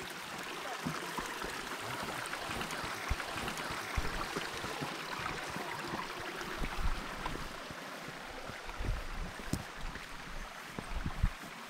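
Steady rushing of a mountain stream beside a forest trail, with irregular footsteps on the stone path.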